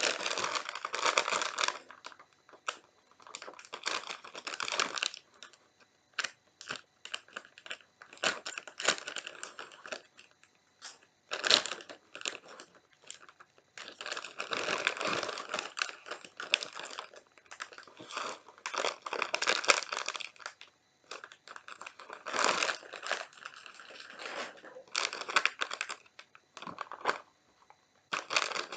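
Plastic snack packet crinkling and rustling in irregular bursts, mixed with crisp crunching and chewing of Oriental Super Ring snack rings.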